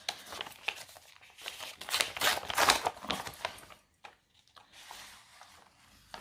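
Wrapping being crinkled and torn open by hand: a run of rustling, crackling bursts for about four seconds, loudest around two to three seconds in, then quieter handling.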